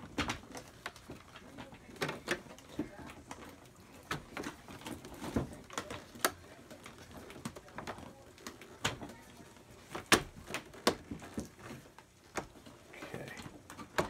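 Hard plastic parts of a PJ Masks HQ playset clicking and knocking together as its clear plastic elevator tube is worked into the base: irregular sharp clicks, a few of them louder.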